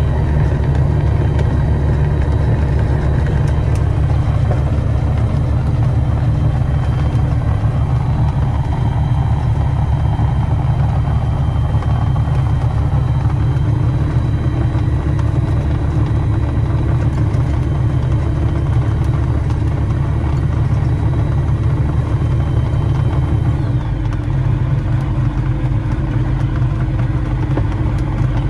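Pelegrin Tarragon ultralight's piston engine and propeller running at low power while taxiing, a steady deep drone. Its note shifts slightly and gets a little quieter near the end.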